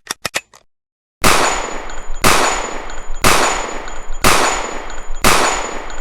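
Edited outro sound effect: four quick clicks, then a heavy bang about once a second, each one ringing out, with a faint steady high tone underneath.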